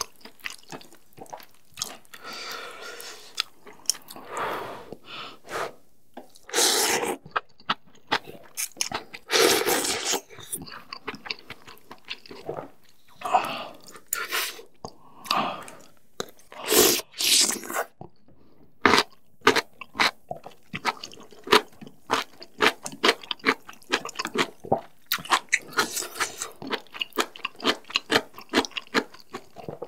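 Close-miked eating of spicy kalguksu noodles in broth: a few long, loud slurps of noodles among steady wet chewing clicks.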